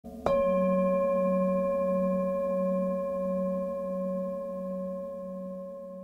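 One strike on a resonant metal bell, singing-bowl-like, a quarter second in, ringing on with several clear tones that fade slowly. The low note wavers gently as it rings.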